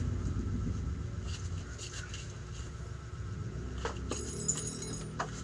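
Scattered light clicks and knocks over a steady low hum, with a brief high metallic jingle about four seconds in.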